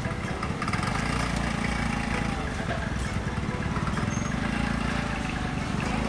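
Busy market ambience: a steady low rumble with faint chatter of shoppers and stallholders.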